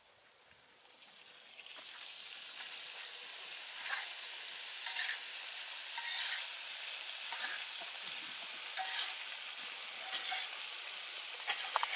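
Boiled pasta frying and sizzling in a pan of oil, onion, garlic, chilli and tomato masala while it is stirred, with short scrapes every second or so. The sizzle comes in about a second and a half in and then holds steady.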